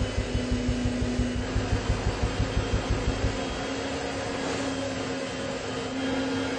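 Insulation blowing machine (Intec Force/2) running for dense-packing cellulose, with a rapid even pulsing of about five beats a second over a steady hum. The pulsing stops about three and a half seconds in, leaving a steady blower hum and rush of air.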